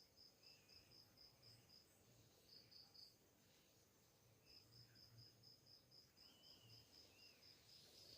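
Faint insect chirping: short high pulses repeating about four times a second, pausing briefly about two seconds in and again for over a second around the middle before running on.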